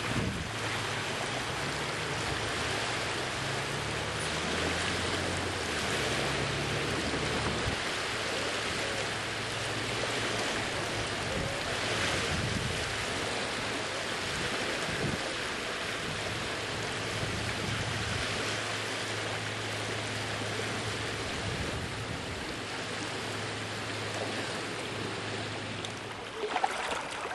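Water rushing and splashing with wind on the microphone, over a low motor hum that steps up and down in pitch and drops out near the end.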